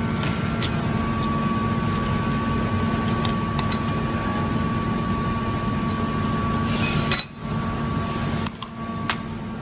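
Metal tools clinking against the steel parts of a screw-compressor air end as its screws are undone: scattered light metallic clicks and clinks over a steady background hum.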